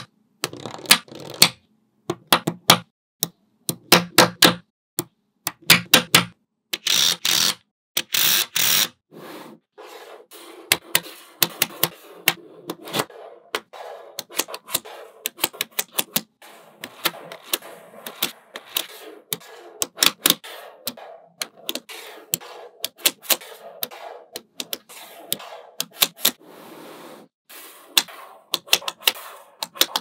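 Small neodymium magnetic balls clicking and snapping together as strips and blocks of balls are pressed onto a magnet-ball build: sharp, irregular clicks in quick clusters. Two longer, denser bursts of clatter come about seven and eight seconds in.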